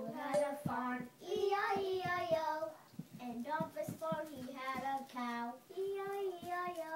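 A child singing, several phrases with held notes and short breaks between them.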